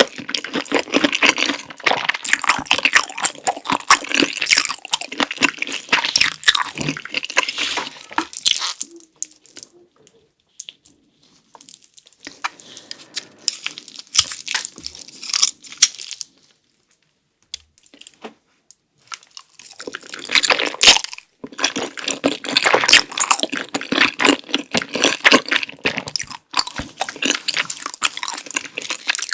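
Close-miked eating of sausage and creamy spicy noodles: wet chewing with crisp crunches and bites. The sound is dense for about the first nine seconds, goes much quieter through the middle, then turns dense again about twenty seconds in.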